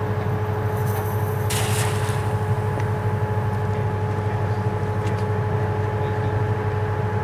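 A steady machine drone: a low hum with a constant whine over it, and a brief hiss about a second and a half in.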